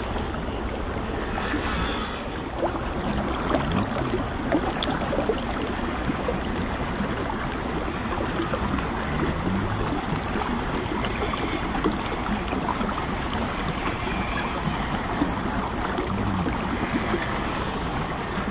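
Shallow rocky stream running steadily, a continuous rush of flowing water.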